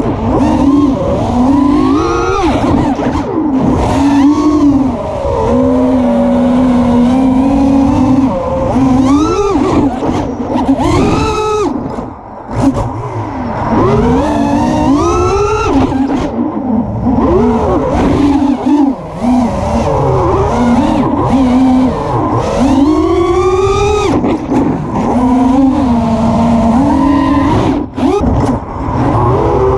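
Electric motors and propellers of a small FPV drone whining, the pitch rising and falling constantly with the throttle as it dives and flips. The sound drops out briefly a few times.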